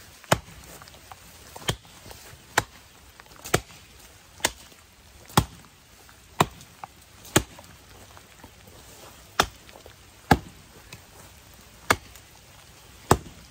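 Hults Bruk 24-inch bushcraft axe chopping into a standing green sapling: about a dozen sharp chops, roughly one a second, with a short pause past the middle.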